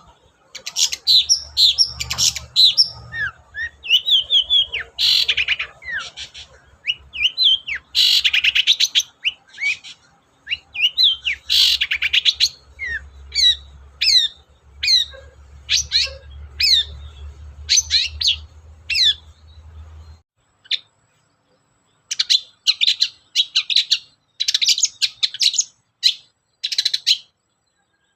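Long-tailed shrike (cendet) singing a fast, varied song of short chirps and quick downward-sweeping notes in bursts with brief pauses. A low background hum underneath stops about two-thirds of the way through.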